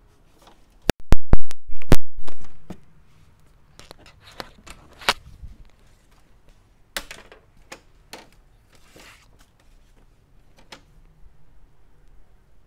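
Sharp clicks and knocks from an inkjet printer being handled: a quick run of loud ones about a second in, then scattered lighter clicks.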